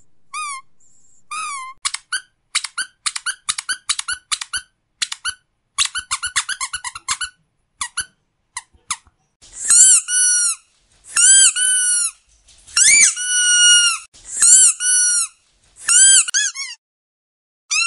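A squeaky dog toy being squeezed over and over. For the first half it gives short squeaks in quick runs; from about halfway through it gives longer, drawn-out squeaks, each held for up to a second.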